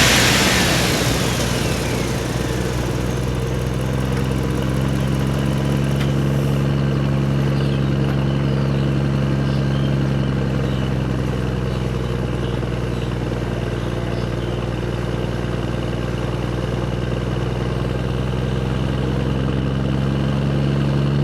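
Engine idling with a steady low hum, settling down from a louder rev in the first couple of seconds.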